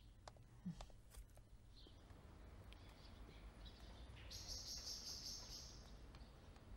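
Near silence: faint background ambience with a few soft clicks and a faint high hiss that comes in about four seconds in.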